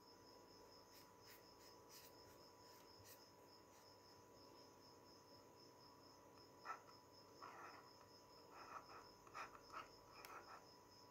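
Near silence with a faint steady electronic hum and whine. About six and a half seconds in, a few brief, faint scratchy sounds begin: a stylus writing on a tablet.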